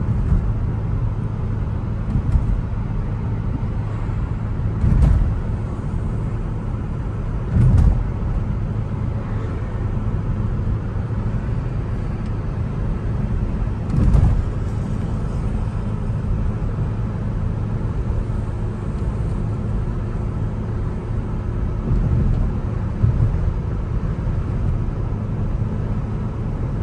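Cabin noise of a Kia Stinger driving along a street: a steady low road and engine hum, broken a few times by short low thumps.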